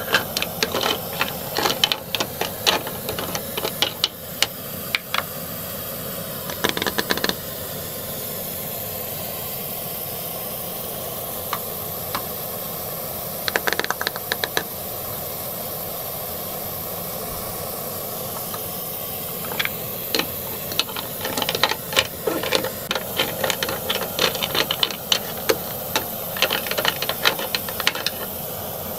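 Hard plastic toy food and a plastic spoon clicking and clattering against a small plastic toy pot as they are stirred, in bursts of quick light taps with pauses between. A steady hiss runs underneath.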